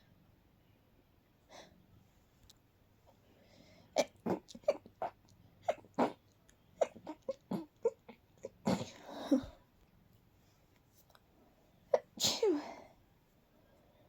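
A person sneezing with the sneezes held back and stifled. A quick string of short, sharp, clipped sneezes starts about four seconds in. Two longer, breathier sneezes follow, one in the middle and one near the end, each dropping in pitch.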